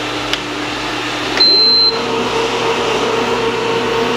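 Bread machine being set to mix: a couple of button clicks, then a single high beep of about half a second. The machine's kneading motor then starts with a steady hum, over a constant background hum.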